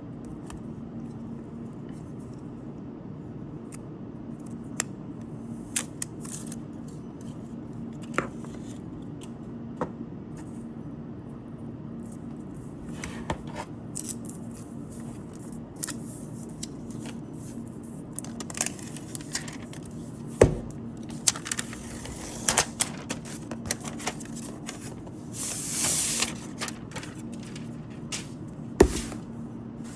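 Handling noise as a tablet and its box are unpacked: scattered light clicks, taps and scrapes, with a sharp knock past the middle and another near the end, and a brief rustle about three quarters of the way through, over a steady low hum.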